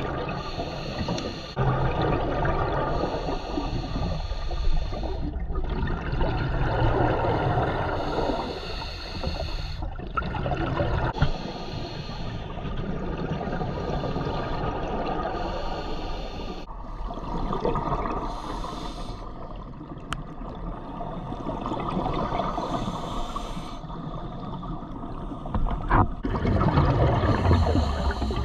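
Scuba diver's regulator breathing underwater: hissing inhalations alternating with gurgling rushes of exhaled bubbles, repeating every few seconds.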